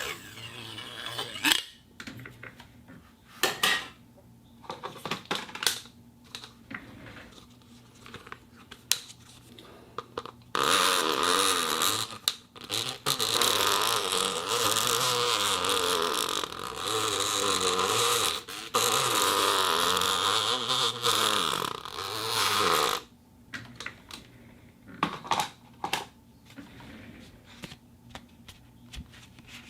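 Plastic cup handled for foley: scattered short taps and clicks, then about twelve seconds of continuous rubbing with wavering squeaks, then scattered taps again near the end.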